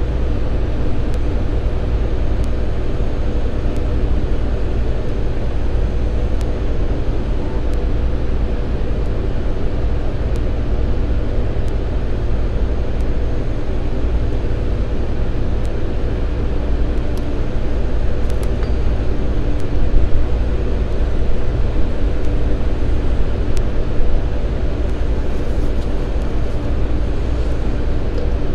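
Steady drone of running machinery: a deep rumble with a few steady hum tones, and a couple of brief louder knocks about two-thirds of the way through.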